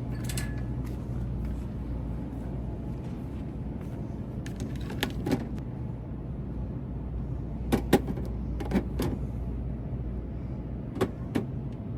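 A steady low rumble, like a vehicle running, with a handful of short clicks and knocks scattered through it.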